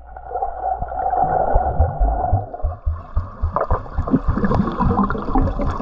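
Muffled underwater sound in a swimming pool: bubbles gurgling, then from about halfway in, a run of dull knocks and sloshing as a hand moves through the water to the submerged handheld radio.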